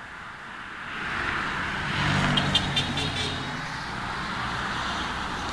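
A car driving past on the road: its engine and tyre noise builds over the first two seconds, is loudest about two to three seconds in, then stays up.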